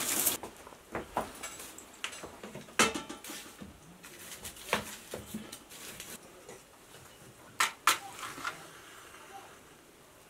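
Dry brushwood and sticks rustling and clacking as they are handled and pushed into a clay cooking stove, with a few sharp knocks of wood and metal, including two close together near the end.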